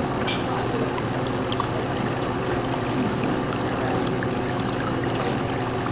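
Steady trickling and pouring of circulating aquarium water, over a low steady hum.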